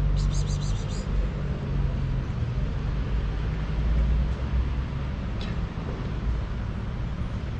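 A motor vehicle engine running with a steady low rumble, with a short run of quick high ticks in the first second.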